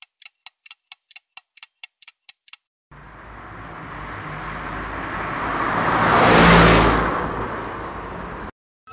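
A quick run of about a dozen even clicks for the first two and a half seconds. Then road traffic noise from a moving vehicle, swelling to a loud whoosh of a vehicle passing close and fading again before it cuts off abruptly.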